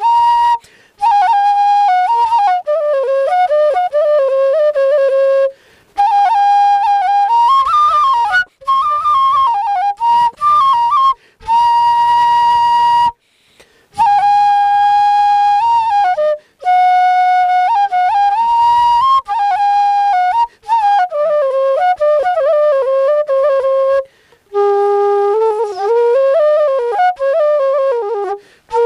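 Bansuri bamboo flute playing an old-style Nepali folk melody, in phrases of a few seconds broken by short pauses for breath.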